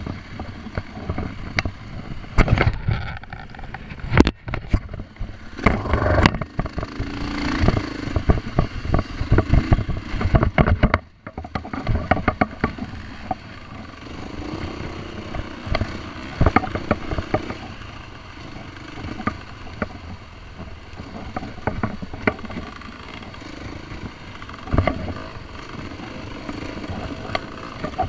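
Husqvarna dirt bike's engine running and surging with the throttle on a rough trail, with frequent knocks and rattles as the bike goes over rocks and ruts. The level drops briefly about eleven seconds in.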